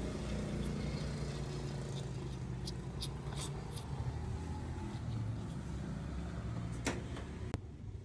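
A motor vehicle engine running steadily in the background, with a few light clicks about three seconds in and two sharper clicks near the end.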